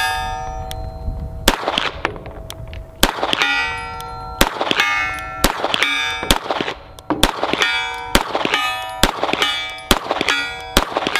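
Dan Wesson DWX pistol firing a string of shots, some in quick pairs, each followed by the clanging ring of a struck steel target.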